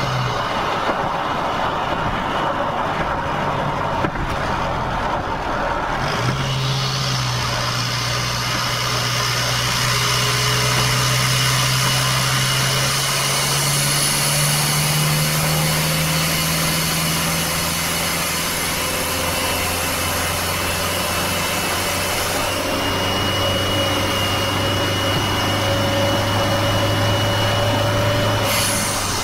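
Toyota 2KD-FTV 2.5-litre four-cylinder turbo-diesel driving at highway speed, with road noise under it. The engine is held back softly at first. About six seconds in it picks up again and its note rises slowly for about ten seconds, then levels off lower and steady, with a thin faint whistle above it.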